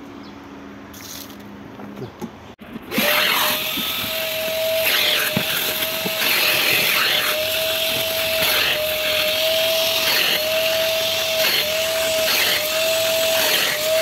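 Krisbow FRVCW12 wet-and-dry vacuum cleaner running with a loud, steady whine that cuts in about three seconds in. Its pitch dips and breaks roughly once a second as the crevice nozzle is worked across a soaked mattress, sucking water out of the fabric.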